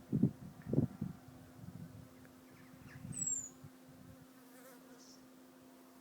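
An insect buzzing close by in short bursts, loudest in the first second. About three seconds in comes a single thin, high bird call that falls quickly in pitch.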